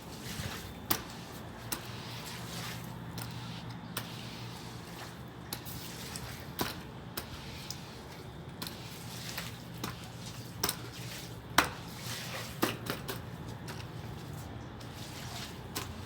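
Water from a garden hose splashing and dripping on the ground, with irregular sharp splats over a steady low hum.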